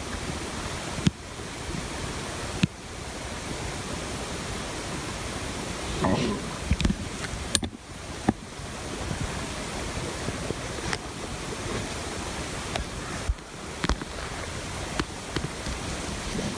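Steady rushing of wind across the microphone, easing for a moment now and then, with scattered light clicks.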